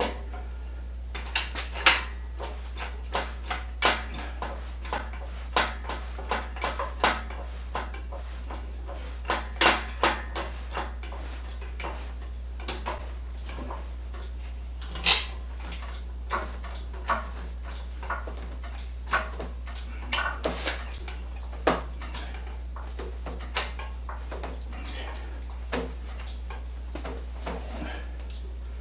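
Irregular metallic clinks and clanks of steel machine-moving gear being handled: lifting rods, sling hardware and hoist parts knocking together, a few dozen separate knocks with a steady low hum underneath.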